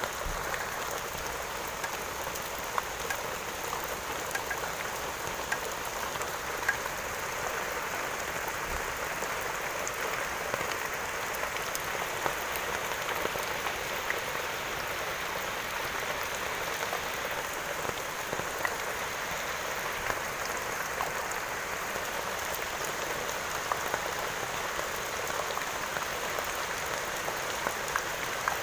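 Steady rain falling, an even hiss with scattered sharper drop ticks standing out every second or two.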